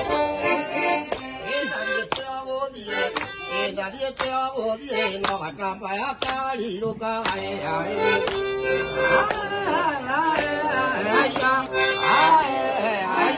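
Button accordion playing a lively traditional Kikuyu dance tune over a steady beat of sharp strikes, with voices singing along from about nine seconds in.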